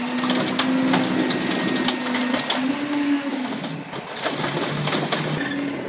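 The hydraulic packer and engine of a New Way Cobra Magnum rear-loader garbage truck drone steadily under load, shifting in pitch a few times. Over the drone, the Pontiac Grand Am's body cracks, snaps and crunches again and again as it is forced into the hopper.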